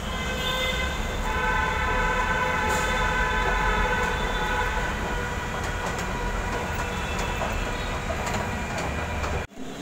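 Metro train running past: a steady whine of several held tones over a heavy low rumble, cut off abruptly near the end.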